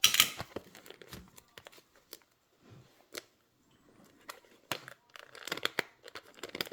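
Plastic wrapping on a box of hockey cards being torn open and crinkled: a sharp rip right at the start, then scattered taps and clicks, and a stretch of crinkling near the end.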